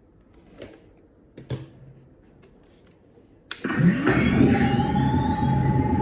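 A few faint switch clicks, then about three and a half seconds in a sharp click and the Neutrona Wand's power-up sound effect from a gpstar proton pack kit: several rising whines that level off over a steady low hum and a steady high tone, the wand ramping up to its idle.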